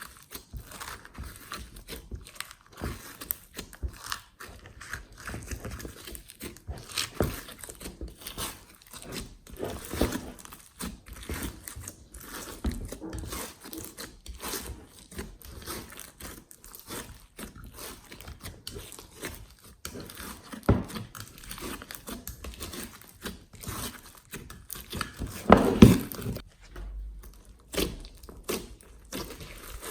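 Glossy slime being kneaded and squished by hand: a dense, irregular run of sticky clicks, pops and crackles, with a few louder squishes and the loudest about 26 seconds in.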